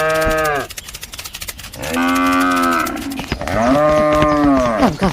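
Cow mooing three times, each call about a second long, rising then falling in pitch, over a fast clicking.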